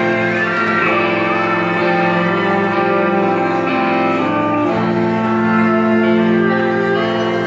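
Live band playing an instrumental passage, with bowed strings holding long notes that change every second or so.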